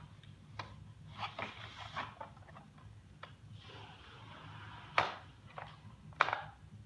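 Hands working at toy packaging in a cardboard box: light rustling and scraping with scattered small clicks, and two sharper clicks about five and six seconds in, over a faint steady low hum.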